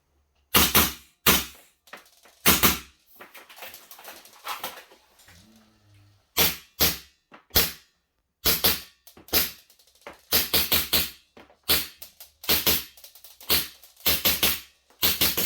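Gas blowback airsoft rifle and pistol firing single shots, each a sharp crack with the bolt or slide cycling. The shots come in irregular strings, some in quick pairs, with handling clatter between.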